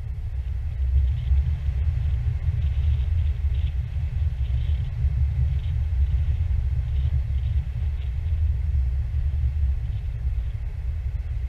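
Wind buffeting an action camera's microphone in flight: a loud, steady low rumble.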